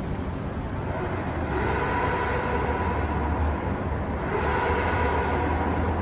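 Traffic and road noise heard from inside a moving taxi cab: a steady low rumble of engine and tyres that grows louder about a second and a half in, with a faint whine over it.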